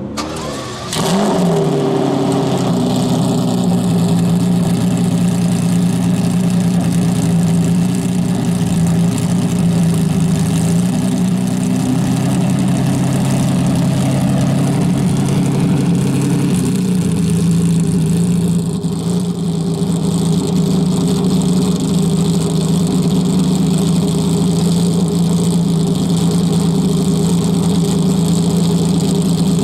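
Lamborghini Diablo SV-R's V12 through its open twin exhaust pipes: a quick rev about a second in, settling into a loud, steady idle.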